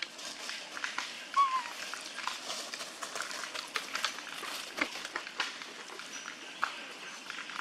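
Macaques shifting about on dry leaf litter: a steady rustle with many small ticks and crackles. One short, wavering high squeak comes about a second and a half in.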